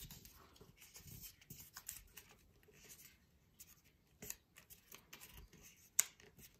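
Faint rustling and crinkling of paper as the flaps of a paper fortune teller are folded to the centre and creased by hand, with one sharper click about six seconds in.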